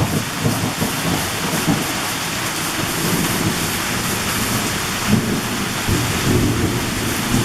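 Heavy summer downpour of a thunderstorm, rain falling steadily and hard and splashing on surfaces.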